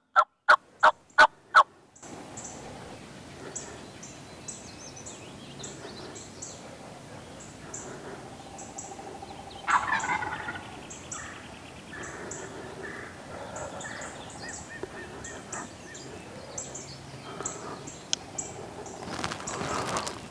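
A hen-turkey yelp series on a hunter's turkey call, about three evenly spaced yelps a second, stopping about two seconds in. Then a wild turkey gobbler gobbles once about ten seconds in, over short high bird chirps repeating.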